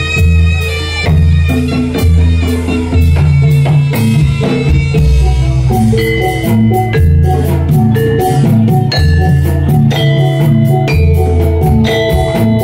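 Jathilan dance accompaniment: a gamelan-style ensemble with struck metallophones playing a repeating melody over drums and a strong bass pulse that changes about once a second.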